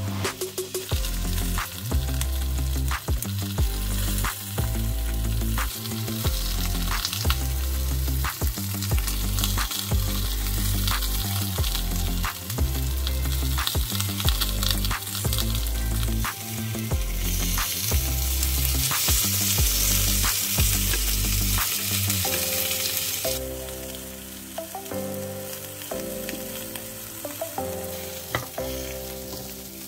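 Food sizzling as it fries in a pan, louder for several seconds past the middle, over background music with a steady bass line that drops out about three-quarters of the way through.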